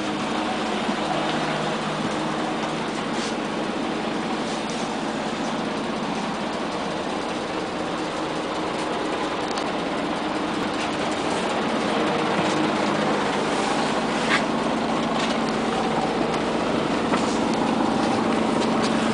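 Inside a Scania CN94UA OmniCity articulated city bus under way: steady engine and road noise with occasional clicks and rattles. It grows louder and deeper about two-thirds of the way through.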